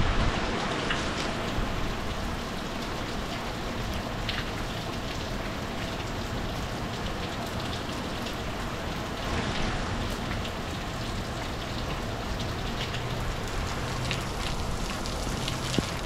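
Heavy rain falling steadily, an even hiss with scattered sharp ticks of single drops striking close by.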